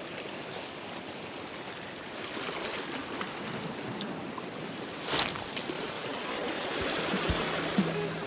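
Sea water washing and lapping at the shore in a steady rush, with a brief louder surge about five seconds in. Music comes in near the end.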